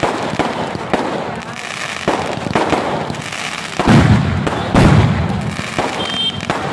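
Fireworks going off in quick succession: a dense string of bangs and crackles from bursting shells, with two heavy booms about four and five seconds in as the loudest reports.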